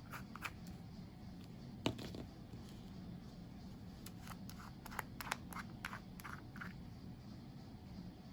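Handling noises from small items being picked up and set down: one sharp click a little under two seconds in, then a run of small clicks and scrapes between about four and seven seconds in.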